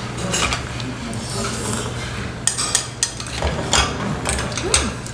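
Close-up eating sounds: chewing, with several sharp clicks of metal chopsticks against a small ceramic bowl, over a steady low hum.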